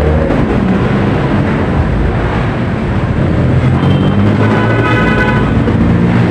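Busy city street traffic: a loud, steady rumble of passing engines and tyres, with a pitched tone rising out of it for about a second near the end.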